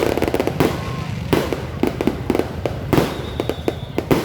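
Fireworks going off: a dense, irregular run of sharp bangs and cracks, several a second and often overlapping, with louder blasts about half a second in, near a second and a half, and around three seconds.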